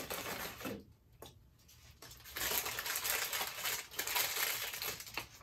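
A paper chicken-nuggets bag crinkling and rustling as it is handled and opened, with short rustles at first and steadier, louder crinkling through the second half.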